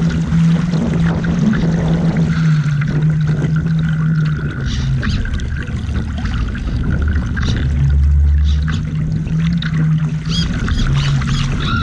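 Water splashing and rushing along the hull of a radio-controlled Laser model yacht as it sails through chop, heard close up from its deck. A steady low hum comes and goes over the top, fading out about four seconds in and returning twice.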